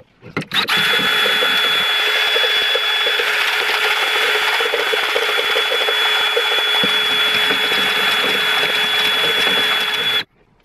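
DeWalt cordless drill running at a steady high speed, spinning a wire whisk that beats egg whites stiff in a plastic measuring jug, with a constant whine. It starts about half a second in and cuts off suddenly near the end.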